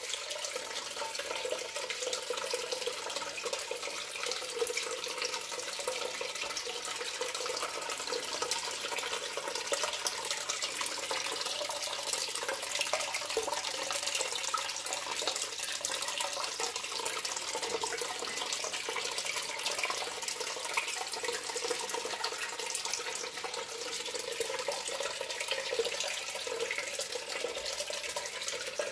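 Water running steadily and splashing, with no break.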